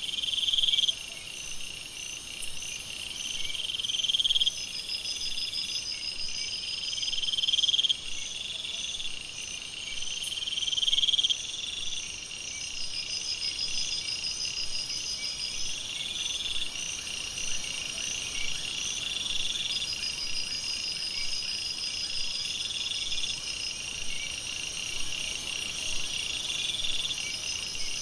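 Night jungle chorus of insects and frogs: a high call swells louder over about a second and cuts off sharply, repeating roughly every three and a half seconds and growing fainter after the first few, over a steady bed of high trilling and pulsed chirping.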